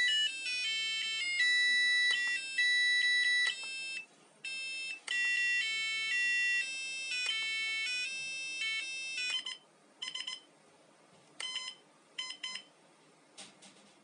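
LCD digital alarm clock playing its built-in electronic alarm melody: a high, beeping tune that stops about nine seconds in. It is followed by several brief snatches of beeping tunes with short pauses between them, as the melodies are stepped through.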